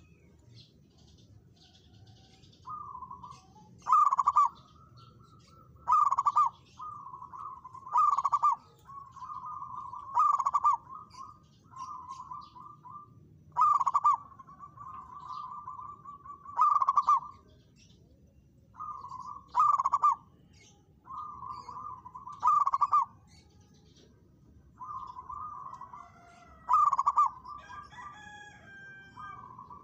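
Zebra dove singing steadily: a run of trilled coos, punctuated every two to three seconds by a louder, accented note.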